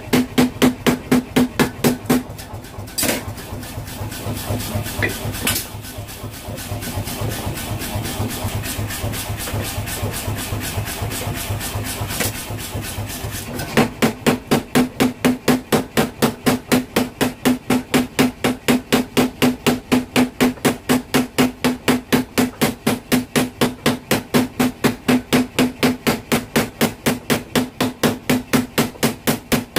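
Mechanical power hammer pounding a red-hot bearing-steel knife blade on its anvil, about three or four blows a second. The blows stop about two seconds in. For roughly eleven seconds there is only a steady low hum and a few single clanks, then the rapid hammering starts again and keeps on.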